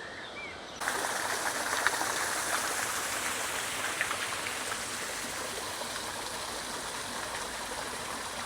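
Garden fountain water splashing: a steady rushing that starts suddenly about a second in.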